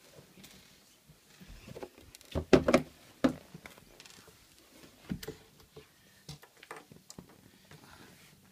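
Scattered handling knocks, clicks and rustles: the camera being moved about and Lego pieces set down on a wooden tabletop. The loudest is a quick cluster of knocks about two and a half seconds in.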